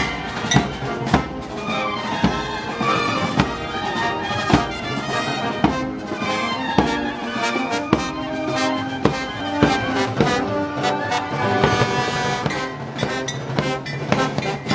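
Brass band playing Moros y Cristianos festival music: trombones and trumpets holding sustained melody over a steady beat of drum and cymbal strikes.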